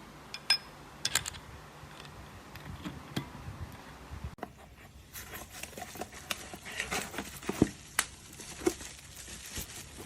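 Scattered small clicks, taps and crinkling from handling the manual coffee grinder and its parts, coming more often in the second half.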